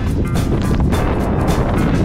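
Music with a beat, over a heavy low rumble.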